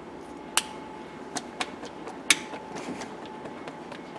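Sharp plastic clicks and lighter taps from handling a paint tube and its flip-top cap. The two loudest clicks come about half a second in and just past two seconds.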